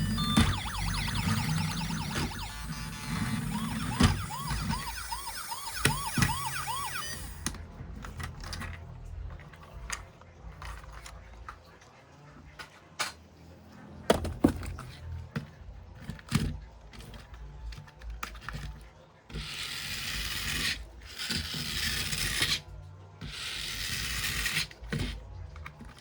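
Battery-powered toy emergency vehicle's electronic siren wailing in quick rising-and-falling sweeps, cutting off about seven seconds in. After that, scattered clicks and knocks of the plastic toy being handled, with two longer rustling stretches near the end.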